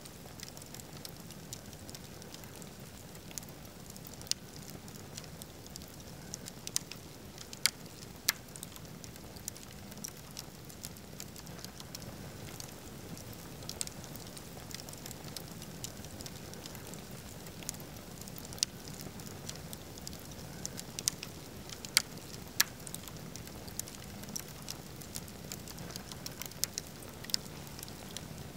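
Wood fire of long leaning logs burning with a steady low hiss. Irregular sharp crackles and pops run through it, a few of them much louder than the rest.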